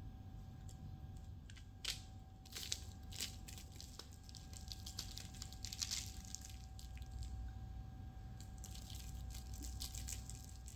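Crisp baked pastry crackling and crunching, a run of irregular crackles and clicks that is densest around the middle.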